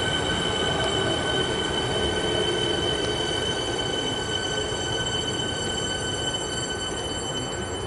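A Siemens Nexas electric suburban train (set 710M) departing: a low rolling rumble with a steady high-pitched squeal over it, which fades out about seven seconds in.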